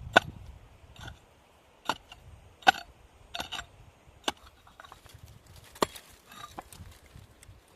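A series of sharp knocks or chops at an uneven pace, about eight or nine strikes. The loudest come near the start, about two and a half seconds in, and near six seconds.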